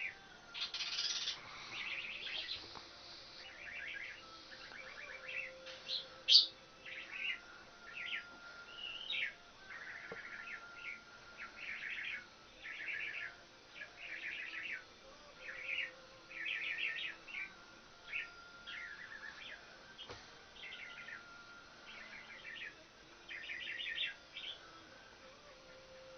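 Small birds chirping and twittering in short, quick trills and chirps, one phrase after another.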